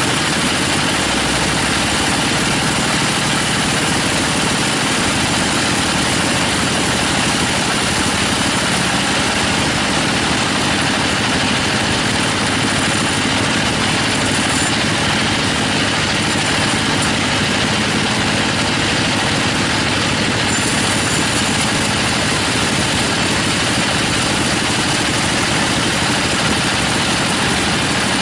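Sawmill band saw running steadily while its blade rips lengthwise through a teak log.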